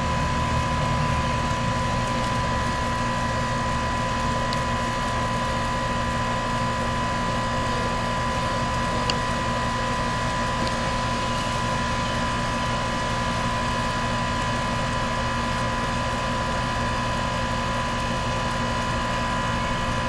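Central air conditioner's outdoor condensing unit running in cooling mode: a steady hum from the compressor and condenser fan, with a steady high tone over it.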